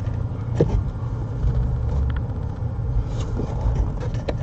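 A few light clicks and knocks as the blend door actuator is pulled out from behind the dash, over a steady low rumble.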